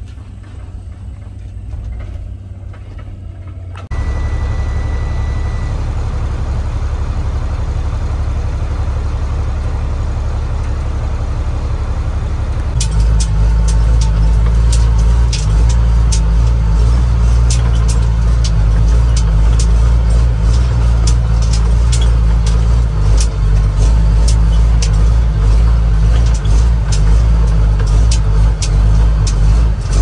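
Vehicle engine and road noise heard from inside the cab. About thirteen seconds in, a semi truck's diesel engine takes over, running louder, with frequent sharp rattles and knocks as the truck moves over rough field ground. A brief steady beep sounds about four seconds in.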